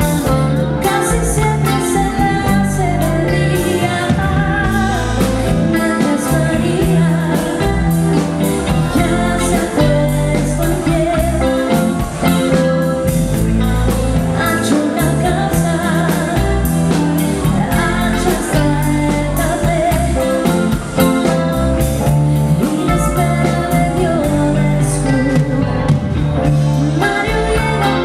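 Live pop-rock band playing: a woman singing lead over electric guitar, bass guitar and drum kit.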